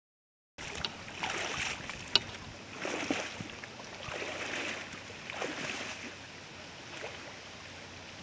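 Rushing river water, starting about half a second in, with wind gusting on the microphone so that the noise swells and fades several times, and one sharp click about two seconds in.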